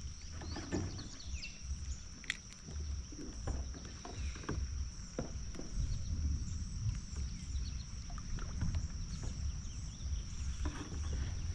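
Scattered light knocks and clicks of gear against a kayak over a low rumble, with a steady high-pitched insect drone behind.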